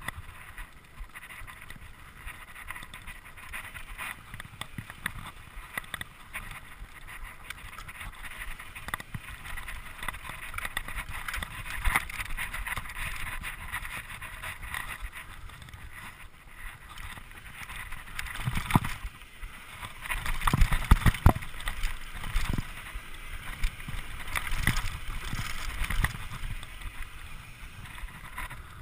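Mountain bike riding fast over a dirt singletrack: knobby tyres rolling on dirt and the bike rattling over bumps, with wind on the microphone. A run of louder knocks and thumps comes about two-thirds of the way through as the bike jolts over rough ground.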